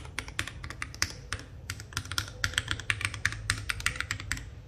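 Rapid, irregular typing on an FL680 mechanical keyboard with Tecsee Purple Panda tactile switches and NJ80 keycaps, its case bottom lined with foam. The keystrokes sound very solid and dense, not hollow or echoing, and stop just before the end.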